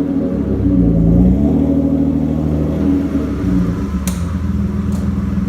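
BMW E36's M50B20 2.0-litre straight-six engine running, its revs dipping and rising in the first couple of seconds and then holding steadier. Two sharp clicks come about four and five seconds in.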